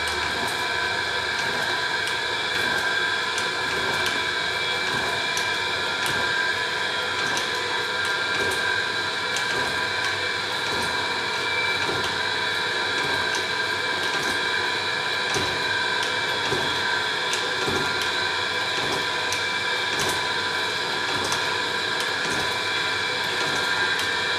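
1850s Sharp & Stewart belt-driven slotting machine running and cutting, its ram stroking up and down with a faint regular tick each stroke, over a steady hum with several held tones. The connecting rod has a little play, quietened with thick gear oil.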